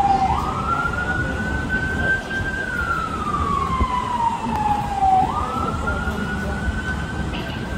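Emergency vehicle siren wailing: a tone that jumps up quickly, climbs slowly, then slides slowly back down, starting over about five seconds in. A steady low rumble runs underneath.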